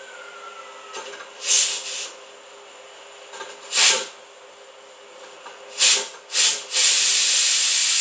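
Steam hissing from a pressure cooker's weight valve as it is tipped with a knife blade. There are four short spurts, then from about seven seconds in a steady, loud, continuous hiss as the cooker is depressurised so it can be opened.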